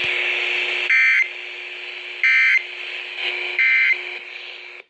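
Three short bursts of EAS SAME digital data tones, the buzzy end-of-message signal that closes a weather-radio warning, about 1.4 seconds apart. They sound over steady radio static, which cuts off just before the end.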